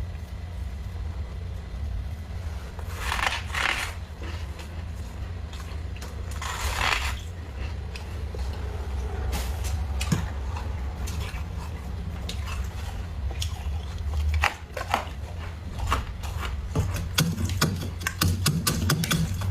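Thick freezer frost being scraped and crunched: two longer scraping strokes a few seconds apart, then scattered crisp crackles that come thicker and faster near the end, over a steady low hum.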